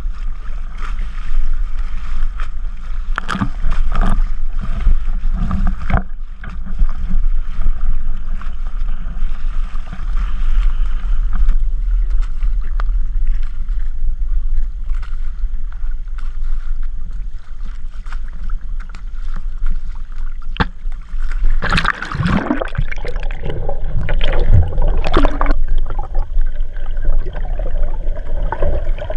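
Choppy sea water slapping and sloshing against a camera at the waterline beside a kayak, over a steady low rumble of wind buffeting the microphone. Louder splashing comes a few seconds in, and again near the end as the camera goes under the surface.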